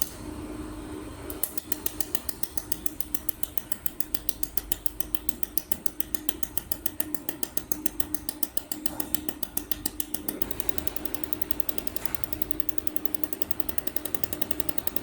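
Jewelry laser welder firing a rapid series of pulses, a sharp click with each flash, about four a second, then faster and softer from about ten seconds in. A steady hum runs underneath.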